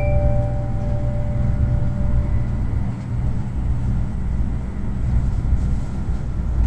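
Steady low rumble of a Tokaido Shinkansen train running, heard from inside the passenger car. The last notes of the in-car chime die away in the first two seconds.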